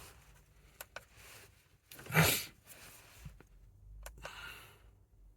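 Mostly quiet, with a few faint clicks and one loud, short noisy breath from a person about two seconds in.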